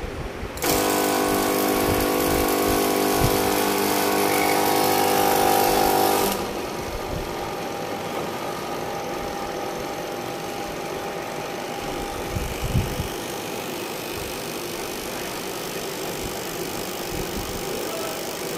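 Smoke sanitizer fogging machine running: a steady buzz with a strong hiss starts about half a second in and cuts off suddenly about six seconds in. A quieter steady noise with a faint hum follows.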